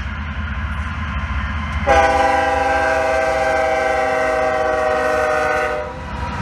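BNSF diesel locomotive's air horn sounding one long blast of about four seconds, a chord of steady tones, for the grade crossing it is approaching. Beneath it runs the low rumble of the train's engines and wheels.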